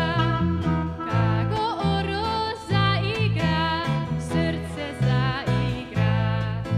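Live Balkan/klezmer-style band music: a clarinet melody over strummed acoustic guitar and a bass guitar playing short held notes.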